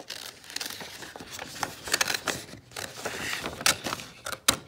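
Scissors snipping through a sheet of paper, with the paper rustling as it is handled; a few sharp snips stand out among the rustling.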